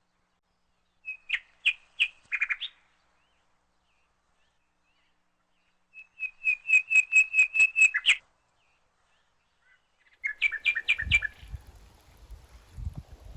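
A songbird calling in quick runs of sharp, repeated chirps: three bouts, the middle one the longest and loudest at about five or six notes a second. Low thumps and a faint rustle start near the end.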